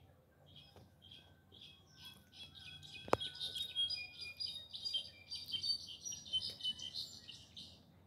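Clarín, a solitaire, singing: a fast tumbling jumble of high, clear notes that starts faint, grows louder about two and a half seconds in and fades near the end. A single sharp click comes about three seconds in.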